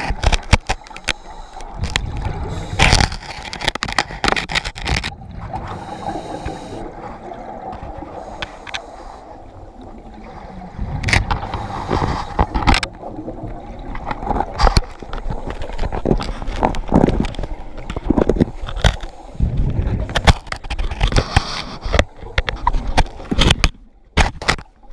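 An octopus's arms and suckers gripping and working over a GoPro's underwater housing: irregular knocks, clicks and scrapes against the case, with a steadier water noise in the quieter stretch between.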